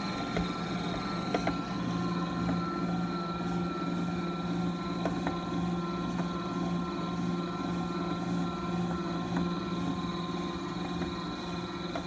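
Haussler stand mixer running while kneading dough: a steady motor hum with a thin high whine above it, broken by a few faint clicks.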